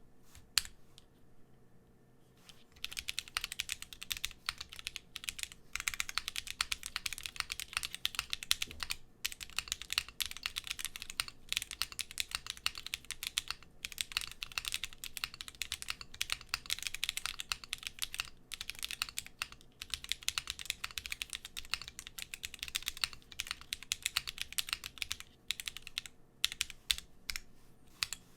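Typing on a mechanical keyboard, a wilba.tech Thermal fitted with lubed and filmed Drop Holy Panda tactile switches and Cannonkeys Honeywell Bold keycaps. A single keystroke comes first, then a fast, continuous run of keystrokes starts about three seconds in and goes on with only brief pauses.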